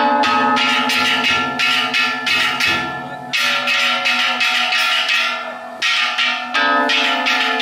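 Ishidori festival cart's bronze kane gongs struck in a rapid, steady clang with a lingering ring, over deep taiko drum beats that stop about three seconds in.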